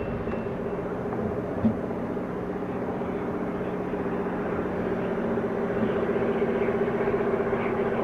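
Caterpillar-powered diesel locomotives, a GP30C and a GP15C, approaching under power in run 8. Their engines give a steady drone that grows louder as they come closer, with one short knock about one and a half seconds in.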